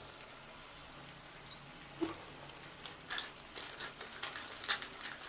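Faint sizzling of an onion-tomato masala frying in mustard oil in a kadai, with scattered small crackles and pops starting about two seconds in.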